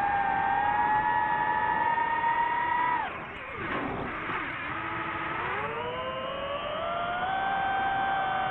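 DJI FPV drone's motors and propellers whining at a steady pitch. About three seconds in, the whine drops sharply as the throttle is cut, then climbs again in a rising, wavering whine as the throttle is opened up.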